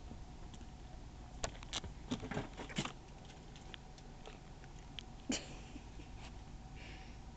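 Kittens scuffling and playing on bedding: a cluster of quick clicks and taps about one and a half to three seconds in, and a single sharper knock a little after five seconds, over a faint steady hum.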